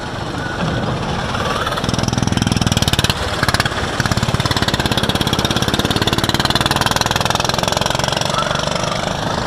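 Go-kart engine running, with a fast, even pulsing that grows louder about two seconds in.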